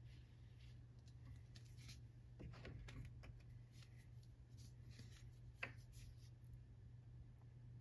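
Near silence with a low steady hum and faint handling noises from small wooden pieces and a glue bottle: a few light clicks and rustles, then one sharper click a little past halfway.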